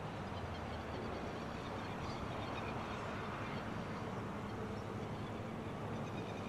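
A low, steady engine hum in the distance that slowly grows a little louder, with faint bird chirps.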